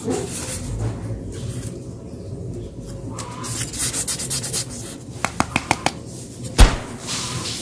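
Hands rubbing and handling polystyrene foam pieces, rustling and scratching, with a quick run of about six clicks about five seconds in and a single sharp knock just after.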